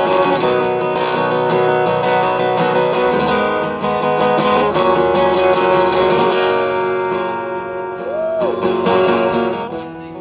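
Acoustic guitar strummed live, chords ringing without singing, with the playing getting quieter near the end.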